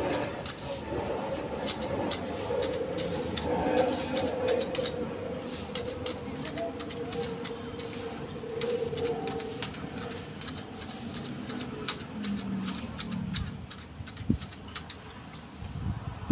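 Hand hedge shears snipping repeatedly through the twigs and leaves of a Fukien tea shrub: a run of quick, sharp, irregular clicks. A low hum sits underneath for the first ten seconds or so.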